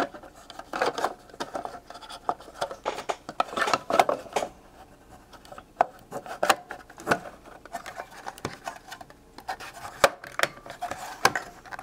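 Handling sounds of a Simpson 461-2 multimeter's circuit board assembly being worked into its case: irregular clicks and light taps with some rubbing.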